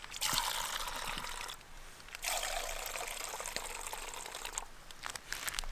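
Red wine poured from a foil wine bag into metal camping mugs: two pours, one after the other, with a short break between, the wine frothing as it fills the mugs.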